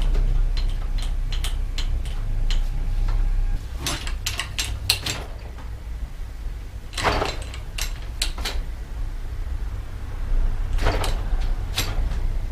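Bicycle brake being worked at the handlebar lever during adjustment: a string of light clicks and clacks at irregular intervals, with a few louder clusters, over a steady low hum.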